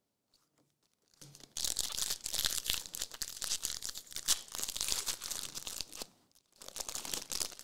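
Trading-card pack wrapper being torn open and crinkled: a dense crackling that starts about a second and a half in, breaks off briefly near six seconds, then resumes.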